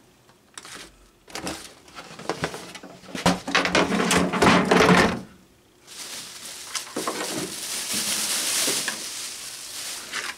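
Unboxing handling noise from paper and cardboard packaging: a run of knocks and rustles, then a steadier, longer rustle of packaging in the second half as the fan is taken out and set on the table.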